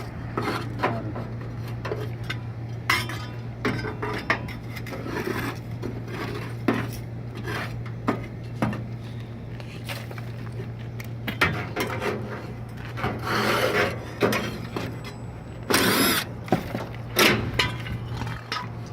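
Short whirs of a power driver and clanks and scrapes of sheet metal as an access panel is unscrewed and handled on a rooftop HVAC package unit, over a steady low hum. The longest whirs come about two thirds of the way in and again near the end.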